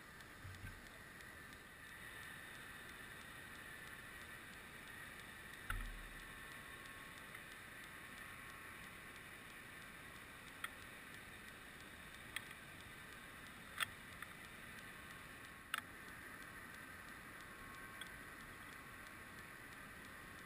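Faint underwater ambience heard through a submerged camera: a steady hiss with a low knock about six seconds in and a handful of sharp, isolated clicks spread through the second half.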